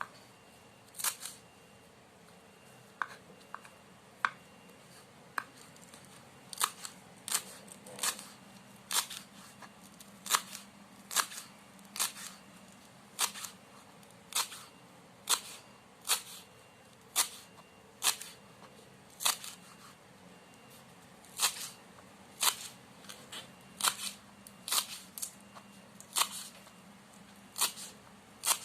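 Knife cutting celery stalks on a cutting board, one crisp chop at a time, about one a second with a couple of short pauses.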